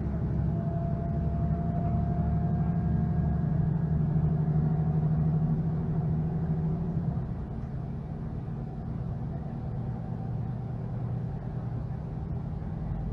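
Mercedes-Benz Citaro G articulated bus's OM457hLA six-cylinder diesel engine running steadily under power, then its note drops back and quietens about seven seconds in.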